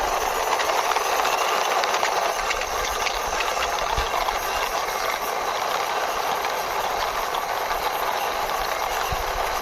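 Toy fire truck pushed along by hand, its wheels rolling with a steady hiss and faint ticking.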